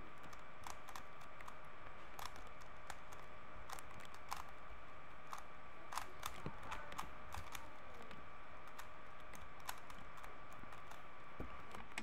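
Plastic layers of a 3x3 Rubik's cube clicking as they are twisted in quick, irregular runs of turns, while a PLL last-layer algorithm is worked through.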